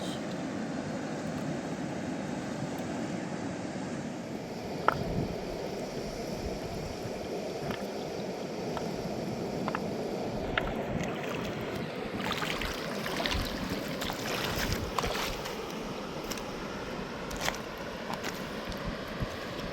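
Mountain river rushing steadily, with scattered sharp clicks and knocks that come more often in the second half.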